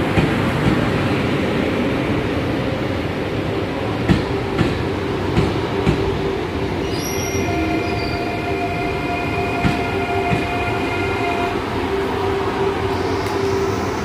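A TER 2N NG double-deck electric train running along the platform with a steady rumble, its wheels clicking over rail joints. From about seven seconds in, a steady high squeal made of several tones at once lasts about four seconds.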